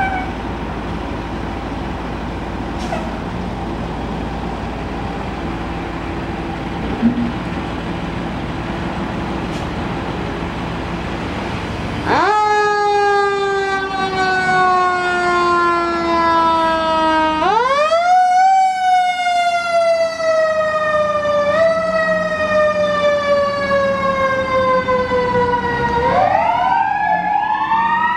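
Fire engine's diesel engine idling with a steady low rumble. About twelve seconds in, its siren sounds: the pitch slides slowly downward, climbs back up, and slides down again. Near the end it changes to a faster, wavering siren tone.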